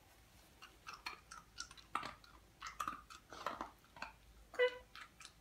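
Hound puppy chewing a piece of hard biscuit treat, with short irregular crunches. A brief pitched sound comes about four and a half seconds in.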